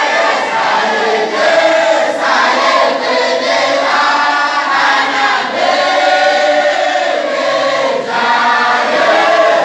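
A large group of men chanting a Sufi wadifa litany together, loud and continuous, their many voices held in long rising and falling phrases.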